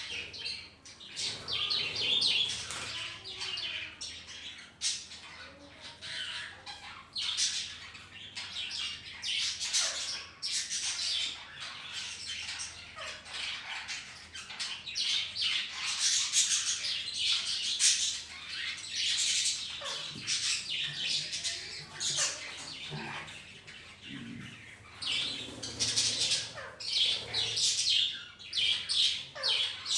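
A flock of budgerigars chattering with a continuous stream of quick, overlapping chirps and warbles, broken by occasional harsher squawks.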